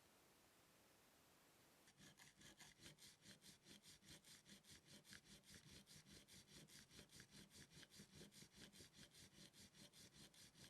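A chisel held in a wooden sharpening jig being rubbed back and forth on a sharpening stone, in quick, even strokes of about five a second. The sound is faint and starts about two seconds in.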